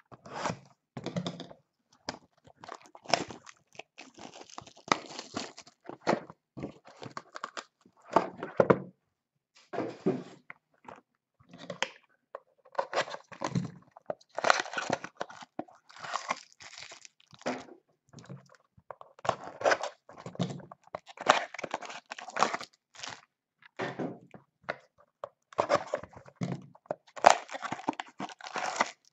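Sealed trading-card hobby box being cut open with scissors and unpacked: irregular crinkling of plastic shrink wrap and tearing and rustling of cardboard and pack wrappers.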